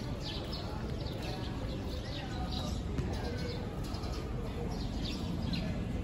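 A flock of small birds chirping as they settle to roost in a tree, many short high chirps overlapping several times a second over a steady low rumble.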